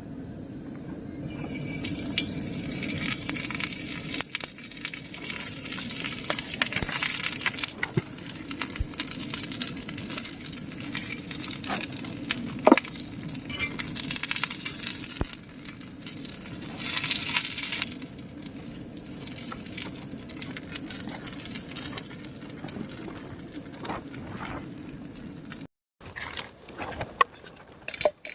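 Camp cooking: small metal clinks and knocks of utensils and cookware over a steady hiss, with a sharper clink about halfway through.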